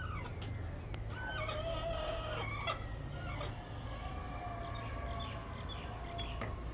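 Birds calling, several overlapping calls with a long drawn-out one about a second in, over a steady low hum.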